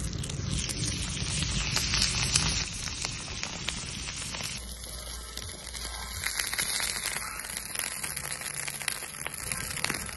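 Meat sizzling and crackling on a hot steel griddle plate ringed by an open wood fire, a steady hiss full of small pops.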